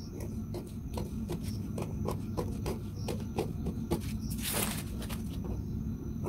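Scissors cutting through pattern paper, one crisp snip about every third of a second, over a low steady hum. About two-thirds of the way through, a brief louder rustle of the paper being handled.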